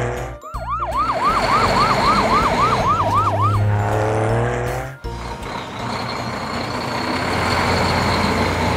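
Cartoon emergency-vehicle siren sounding a fast yelp of about three falling wails a second for roughly three seconds, over a low engine hum. From about five seconds in, a steady noisy vehicle hum takes over.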